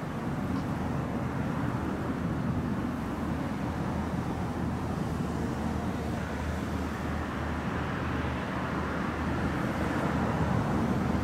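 Steady low rumble of city traffic by a river, swelling slightly near the end.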